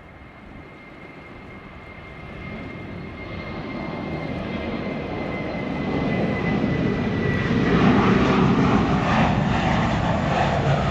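Airbus A320-232's IAE V2500 turbofan engines powering up for the takeoff roll, growing steadily louder. A high steady whine sits over the rumble and fades out about seven seconds in as the rumble builds to its loudest.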